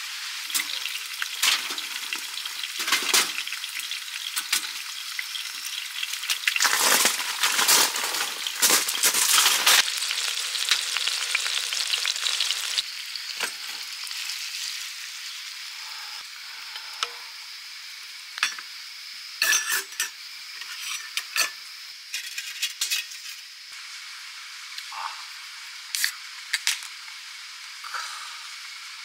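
Shrimp and vegetables sizzling in oil in a frying pan while being stirred, with scraping and clattering in the pan loudest about 6 to 10 seconds in. The sizzle settles lower after about 13 seconds, with scattered sharp clinks.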